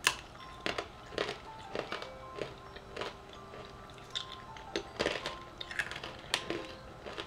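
A person biting and chewing crisp, thin disc-shaped cookies, with a dozen or so sharp, irregular crunches. Faint background music with held notes plays under it.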